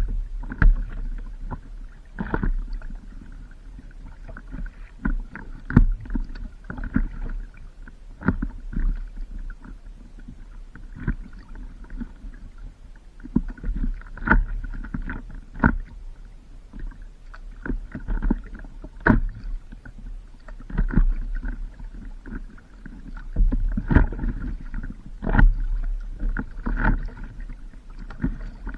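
Water slapping and splashing against a stand-up paddleboard, with irregular knocks every second or so over a steady low rumble.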